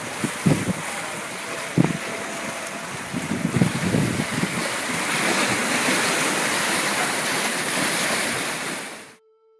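Wind blowing across the microphone: a steady rushing hiss with several low buffeting thumps, louder in the second half. It cuts off suddenly near the end.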